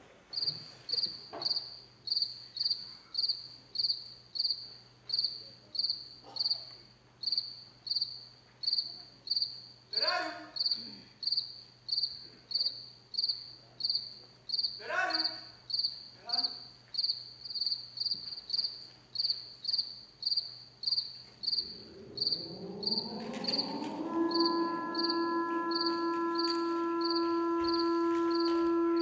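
Crickets chirping in a steady high pulse, about two chirps a second. Two brief falling calls are heard around the middle. Near the end a musical drone rises and settles into a held chord.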